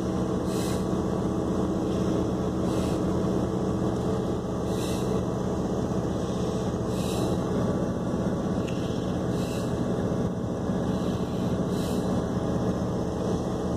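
A Dodge pickup's engine running steadily, heard from inside the cab, with a faint hiss coming back about every two seconds.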